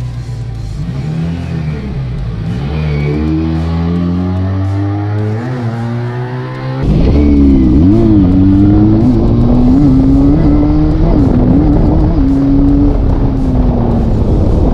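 Benelli Tornado 302R's 300 cc twin-cylinder engine accelerating, its pitch climbing gradually. About seven seconds in it turns suddenly louder and closer, revving up with several brief dips in pitch before easing off near the end.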